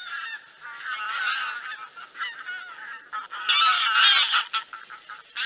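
A flock of wild geese calling, many honks overlapping without a break, loudest a little past the middle.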